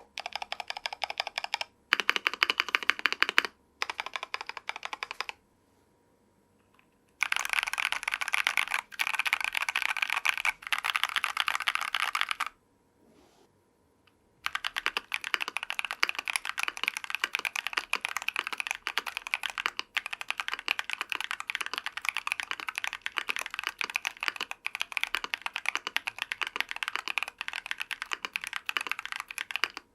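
Typing on a mechanical keyboard with factory-lubed TECSEE Coral 68g tactile switches, in a Tofu60 case with a brass plate and PBT keycaps. Fast keystrokes come in several short runs, with a pause about 5 to 7 seconds in and another near 13 seconds, then steady continuous typing through the rest.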